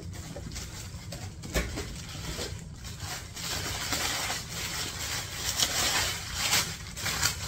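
Paper wrapping around a handbag rustling and crinkling irregularly as hands lift and turn the wrapped bundle, with a soft knock about one and a half seconds in.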